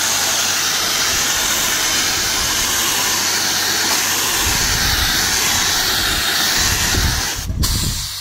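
Air-atomising texture spray gun, fed by a Graco President 10-to-1 texture spray pump, hissing steadily as it sprays texture coating onto a rendered wall. A low rumble joins about halfway through, and the spray cuts out briefly near the end.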